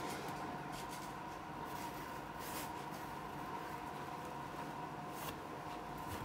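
Faint steady electrical hum with two held high-pitched tones, and a few light taps of a finger on a touchscreen.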